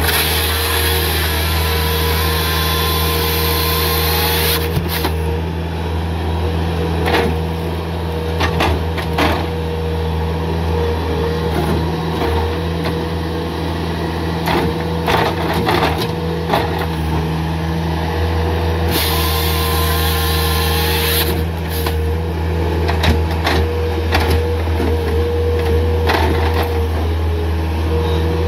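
Bobcat S300 skid steer's diesel engine running steadily under hydraulic load, with a steady whine from the hydraulics as it works a grapple saw. A harsh high hiss comes in for a few seconds at the start and again about 19 seconds in, and scattered knocks of logs being handled sound throughout.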